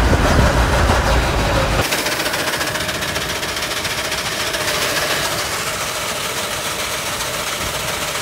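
Truck engine idling with a fast, even rattle. A heavy low rumble in the first two seconds gives way abruptly to a thinner, steady running sound.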